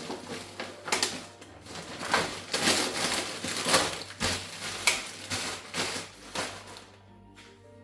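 A run of irregular clicks, taps and short scrapes, like small objects being handled, with a quieter stretch near the end.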